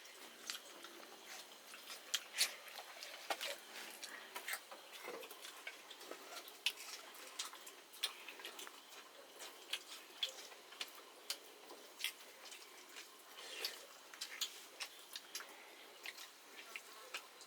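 Close-up eating sounds of chicken and rice: chewing and wet mouth smacks, with many irregular short clicks.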